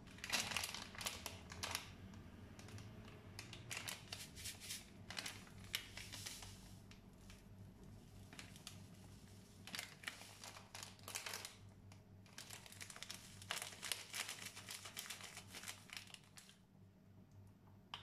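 Repeated bursts of dry rustling and light scraping as ground spices are spooned out of glass jars and sprinkled, over a faint steady low hum.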